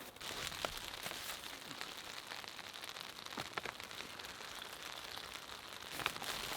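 Rain falling, with many separate drops ticking sharply against a nearby surface over a steady patter.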